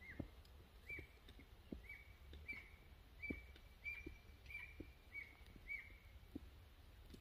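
Footsteps on a hiking trail, with a short high squeak about as often as each step that stops shortly before the end.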